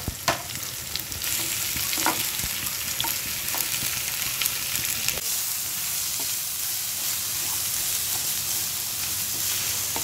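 Sliced onions sizzling in hot oil in a nonstick kadhai, stirred with a wooden spatula that knocks against the pan a few times. The sizzle grows louder about a second in.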